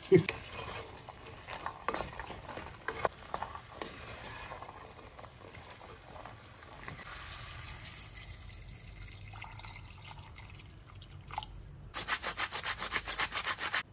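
Wooden spoon stirring soaked white beans in a clay güveç pot, scraping against the pot's rough earthenware sides, with irregular scratchy strokes. Near the end comes a fast, regular run of louder scratching, about seven strokes a second.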